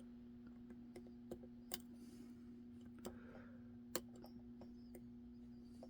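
Faint, irregular metallic clicks of a lock pick tapping the pin stacks inside an ASSA Twin 6K cylinder under tension, with four or five sharper clicks among them, over a steady low hum.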